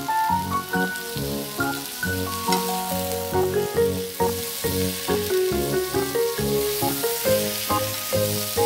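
Taro, pumpkin and onion chunks sizzling in chicken fat as they are stir-fried in a skillet, under background music with a melody.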